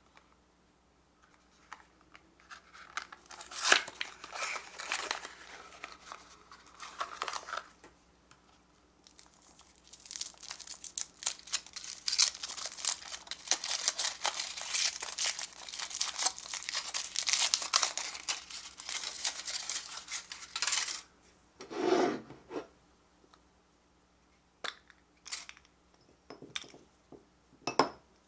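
A Furuta Choco Egg's cardboard box torn open in short bursts, then the foil wrapper crinkled and peeled off the chocolate egg for several seconds. Near the end, one dull snap as the chocolate shell is split, and a few light clicks from the plastic toy capsule being handled.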